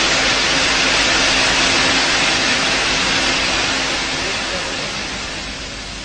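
A loud, steady rushing hiss, like escaping air or rushing water, over a faint steady low hum, slowly fading toward the end.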